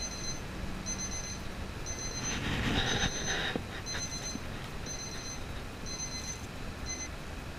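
An electronic alarm beeping steadily, a high two-tone beep about once a second. A short rushing noise comes about two to three seconds in.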